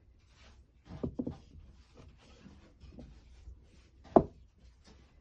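Objects being handled, with light rubbing and scraping, a couple of soft knocks about a second in and one sharp knock about four seconds in.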